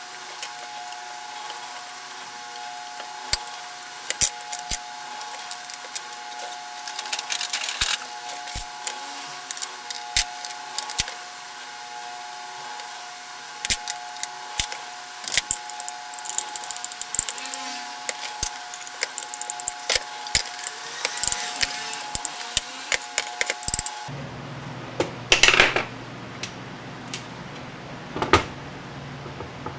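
Irregular clicks and rattles of small hard parts and tools being handled, over a steady whine. About 24 seconds in, the whine stops and a few louder knocks and a scrape follow.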